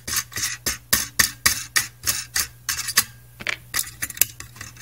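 Adjustable wrench loosening the nut of a coaxial connector on a metal instrument case: quick metal clinks and scrapes, about four a second, as the wrench jaws are reset and turned on the nut.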